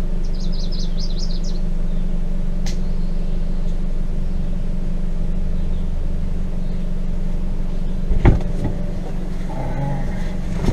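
Steady low drone of a car driving slowly over a rough forest trail, heard from inside the cabin, with a sharp thump about eight seconds in. A short quick run of bird chirps sounds near the start.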